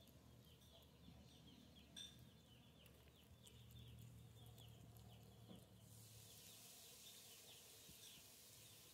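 Near silence: faint outdoor ambience with a steady patter of soft, high chirps.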